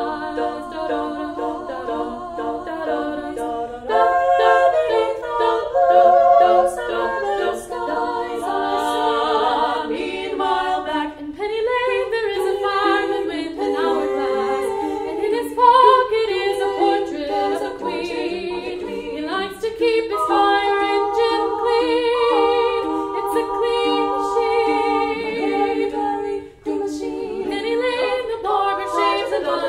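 A female vocal quartet singing a cappella, four voices in harmony holding chords that change every second or two, some notes sung with vibrato.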